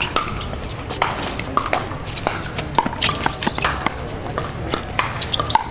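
Pickleball paddles striking a hard plastic pickleball during a rally: a quick, irregular string of sharp pops.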